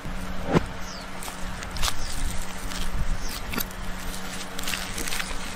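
Large knife cutting and prying the dry, charred husk off a roasted coconut: scraping and crackling of husk fibres, with several sharp knocks as the blade strikes and splits the husk.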